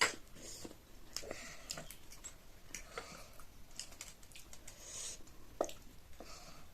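Close-up eating sounds of chow mein: chewing and mouth smacks, with scattered sharp clicks of utensils, the loudest click right at the start.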